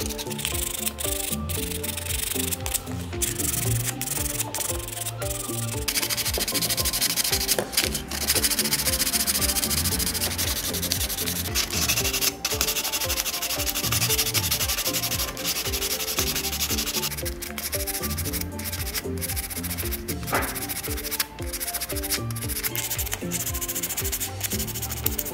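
Sandpaper rubbed back and forth by hand over hard plastic scale-model car parts, a steady scratchy hiss that gets louder about six seconds in.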